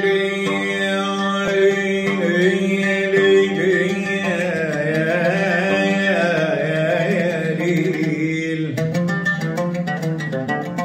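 A man singing an Arabic song in a wavering, held melodic line, accompanied by his own oud. From about nine seconds in, the oud's plucked notes carry on alone.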